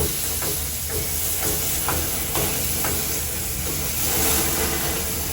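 Beef burger patty sizzling in a hot pan: a steady frying hiss with short crackles about twice a second.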